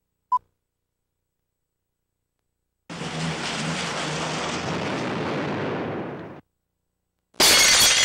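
A short single beep from a film countdown leader, then about three and a half seconds of steady rushing noise, then, near the end, a sudden loud crash with bright high-pitched ringing: the sound effects of a TV show's intro.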